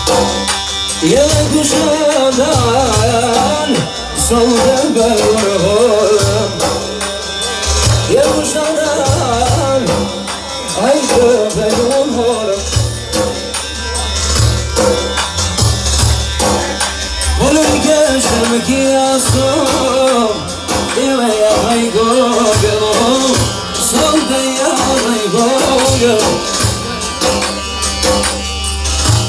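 Live-style folk dance music: a wavering, ornamented melody over a heavy drum and bass beat.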